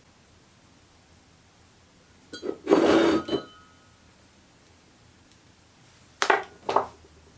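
A thin metal rod rattling and clinking against the inside of a ceramic mug of water for about a second, followed near the end by two quick, sharp clinks.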